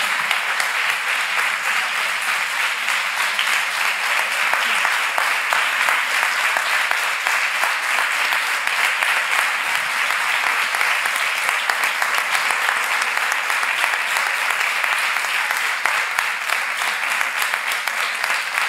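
Audience applauding steadily, a long run of dense clapping without a break.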